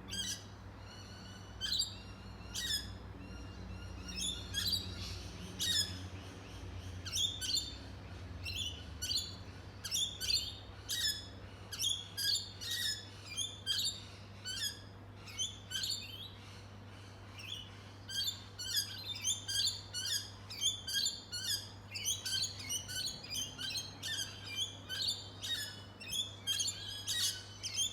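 Small birds chirping, many short sharp chirps in quick succession that thin out for a few seconds midway and then grow busy again. A low steady hum sits underneath.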